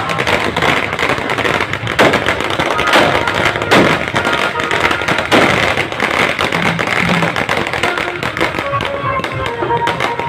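Fountain fireworks on the ground hissing and crackling, with several sharp firecracker bangs in the first half. Music with a melody comes in over it near the end.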